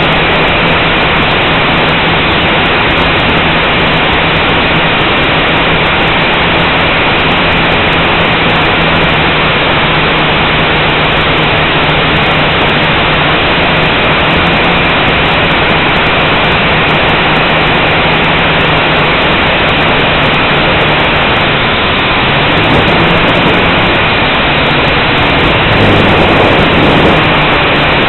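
Blade 180 quadcopter's electric motors and propellers buzzing steadily, heard close up from the drone's own onboard camera. In the last few seconds the hum wavers in pitch and grows a little louder.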